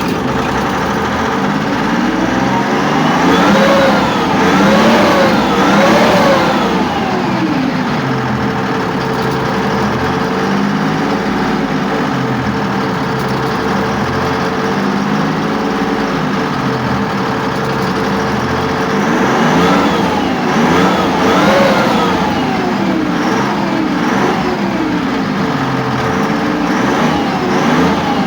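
YPR-765 armoured vehicle's six-cylinder turbo-diesel engine running on a test start after repair, revved up and down three times a few seconds in and again about twenty seconds in, idling steadily between.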